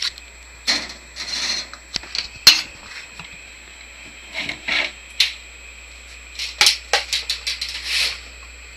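Handling noise on the camera's microphone: irregular clicks, knocks and short rubbing sounds as the camera is fumbled with.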